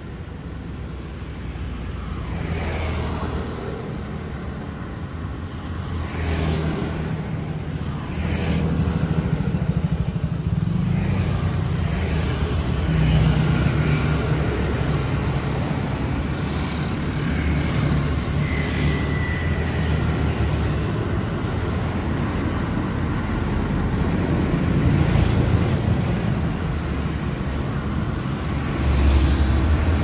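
Traffic of motor scooters and cars passing close by on a city street, engine hum and tyre noise swelling and fading as each vehicle goes past. The loudest pass comes near the end.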